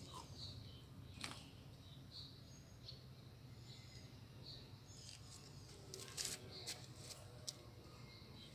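Near silence: a faint steady hum with a few short, high bird chirps scattered through it and a couple of light clicks.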